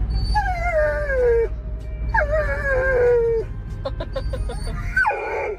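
Dog howling: two long calls that each slide down in pitch, then a shorter cry near the end.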